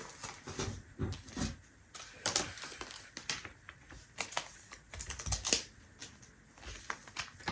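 Irregular clicks, taps and light rustling of hands handling a paper planner and sticker sheets.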